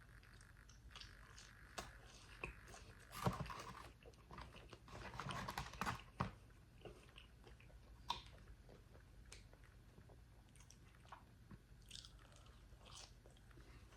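Biting and chewing a mouthful of food, with louder crunches about three and five seconds in and scattered wet clicks and smacks between them.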